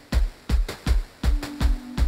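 Electronic background music with a steady drum-machine beat, a little under three kick-drum hits a second.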